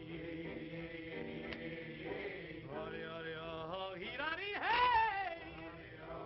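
Early-1930s jazz band soundtrack music: held chords, then sliding wailing notes that rise and fall, loudest about five seconds in.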